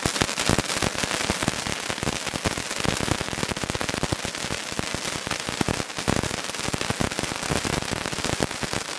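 A fancy ground firework crackling: a dense, continuous stream of sharp crackles and small pops.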